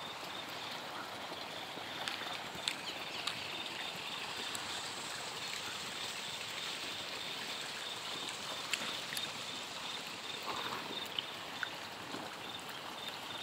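Steady rush of irrigation water flowing across a field, with a few faint ticks.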